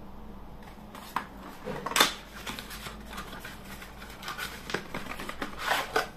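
Cosmetic packaging being handled: a small cardboard box and a plastic conditioner tube knocking and rustling in the hands, with a sharp knock about two seconds in and a quick run of taps near the end.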